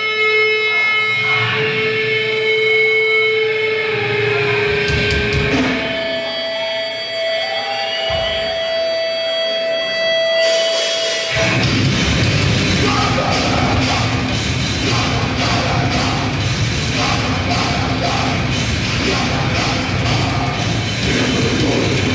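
Grindcore band playing live. It opens on long held guitar feedback tones that shift pitch a couple of times, then about eleven seconds in the full band comes in suddenly with fast, dense drums and distorted guitars.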